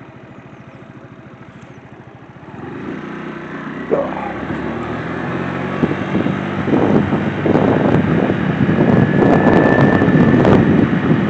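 Scooter engine running steadily, then pulling away and speeding up, growing louder from about two and a half seconds in, with rising wind noise on the microphone as it gathers speed.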